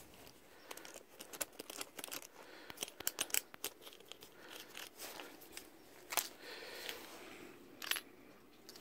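Faint, scattered clicks and light rustling from a small wood-handled hand tool being turned over in the hand close to the microphone, with a few sharper metal ticks.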